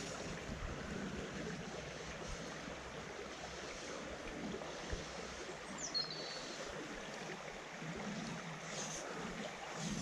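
Shallow river water running steadily over stones, with a short bird chirp about six seconds in.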